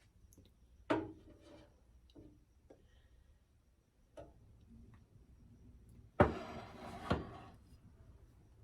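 Knocks and clatter of kitchen items being handled: a sharp knock about a second in, a lighter one near four seconds, then the loudest pair about six and seven seconds in with a rattling clatter between.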